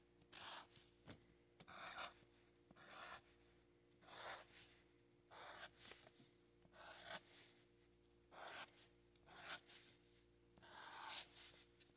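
Black felt-tip marker drawing short curved strokes on paper: faint scratchy strokes about once a second, over a faint steady hum.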